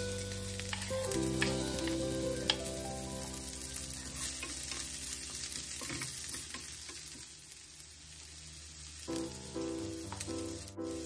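Chopped spring onions, chillies and garlic sizzling in a frying pan while a wooden spatula stirs them, with scattered clicks of the spatula against the pan.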